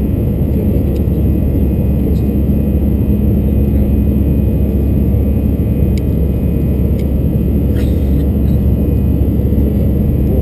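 Steady in-cabin drone of an Airbus A321-212's CFM56 turbofan engines during the climb after takeoff, a constant low rumble with a steady hum. A few faint clicks sound over it.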